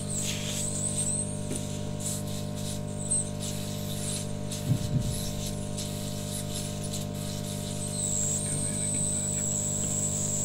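Hot-air rework gun blowing steadily on a phone circuit board to reflow the solder under a chip: a steady blower hum with a thin high whine that comes in stronger about eight seconds in.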